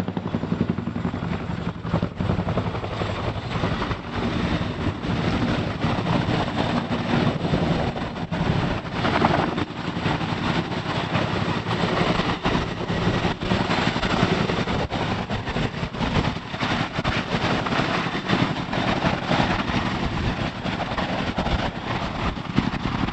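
Boeing CH-47 Chinook tandem-rotor helicopter close by, hovering low with its twin turbines and two rotors running. The noise is loud and steady throughout, with a rapid beat from the blades.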